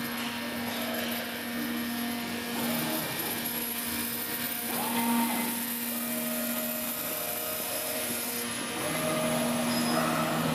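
CNC oscillating knife cutting machine running: a steady motor whir with a few humming tones that shift as the gantry and tool head move over the bed.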